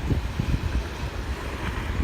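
Wind buffeting the microphone in gusts, a low rumbling, over the hiss of ocean waves on a beach.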